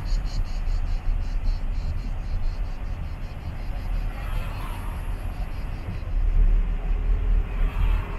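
Low, steady rumble of a car driving slowly, heard from inside the car. For the first second or two, insects chirp in quick, even pulses.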